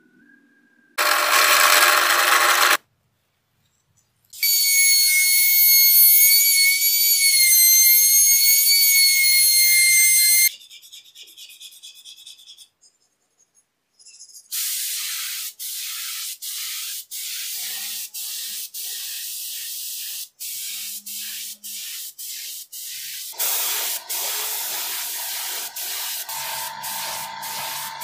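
A string of woodworking sounds. It opens with a short loud hiss, then a steady hiss with a wavering high whine for about six seconds. Later comes sandpaper rubbing on wood in regular back-and-forth strokes with brief breaks, and it ends in an even hiss.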